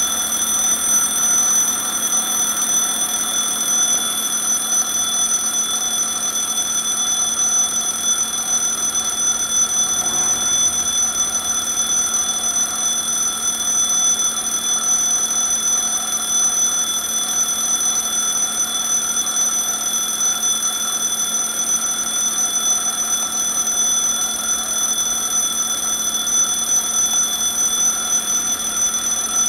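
Railroad crossing warning bell ringing steadily and without a break.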